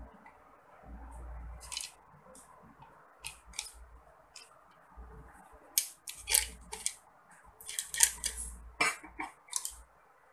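Irregular clicks and scrapes of small hard objects being handled, sparse at first and coming thick and sharp in the second half, with some low bumps.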